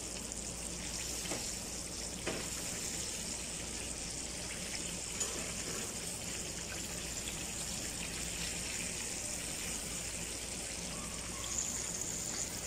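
Hot oil sizzling and bubbling steadily around battered chicken pieces as they deep-fry in a wok, with a couple of faint clicks in the first few seconds.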